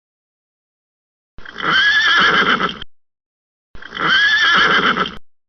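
Horse whinnying twice: the same neigh of about a second and a half each time, a pitched call that wavers in pitch, with dead silence before, between and after.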